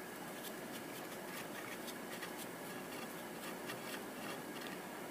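Faint, irregular light ticks and scraping from a hand tool turning out a carburetor's idle mixture screw.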